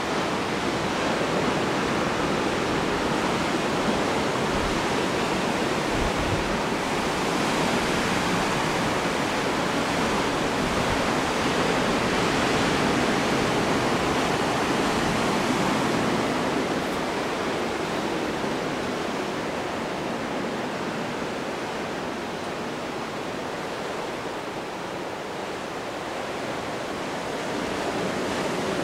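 Steady rush of water with no distinct events, swelling and easing slowly over many seconds.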